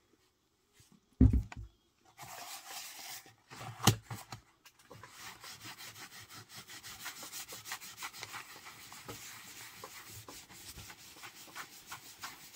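A fleecy wool dauber scrubbing dye into tooled leather in quick circular strokes, a steady rubbing with many short strokes that starts about two seconds in. A low thump just over a second in, and a sharper knock near four seconds.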